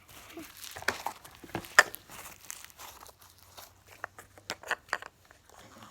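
Plastic packaging of a toy slime egg being crinkled and peeled open, a run of irregular crackles and sharp clicks.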